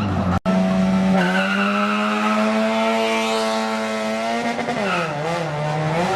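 Drag race car engine held at high, steady revs, then dropping and climbing back twice near the end. The sound cuts out for an instant about half a second in.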